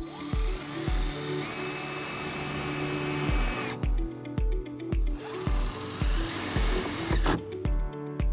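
Power drill driving a self-tapping screw with a 1/4 inch socket into the vehicle's sheet-metal body to ground a trailer wiring harness. It runs in two goes: the first lasts nearly four seconds, its whine rising to a steady pitch; the second, shorter one starts about five seconds in and stops sharply.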